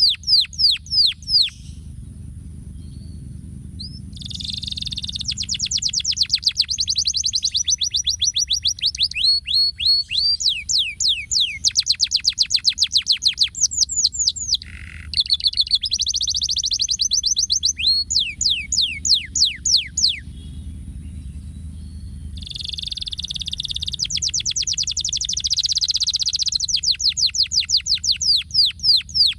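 Domestic canary singing: long phrases of fast repeated notes, each sweeping down in pitch, run together into rapid trills and rolls. The song breaks off briefly about two seconds in and again around twenty seconds in, over a low steady background rumble.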